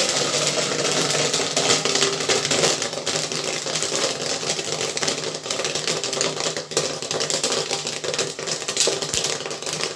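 Corn kernels popping rapidly and continuously in the kettle of a gas-fired popcorn machine with an electric stirrer: a dense crackle of pops over a steady hum. The popcorn is at full pop, close to done, with popped corn spilling out of the kettle.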